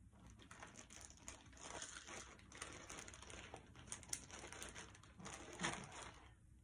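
Hands handling jewelry close to the microphone: faint crinkling and rustling with small clicks, a little louder about five and a half seconds in.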